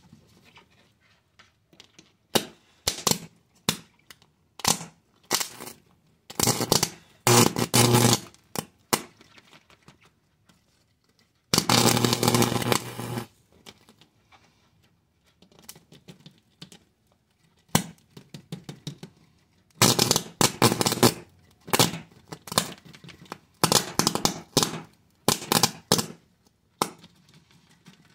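High-voltage current arcing through the charred circuit board between two copper wire electrodes as the carbonised board burns. It goes in irregular sharp crackles and pops, with buzzing stretches of steady low pitch; the longest runs about a second and a half near the middle.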